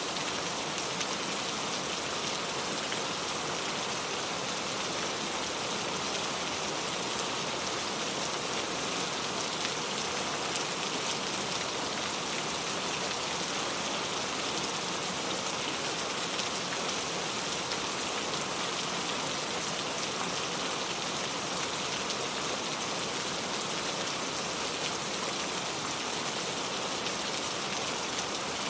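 Steady rain falling on a surface, a continuous even hiss with dense small drop patter.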